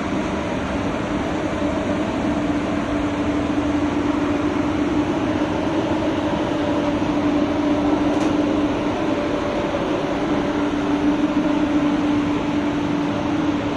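Steady hum of a running motor over an even hiss, unbroken throughout.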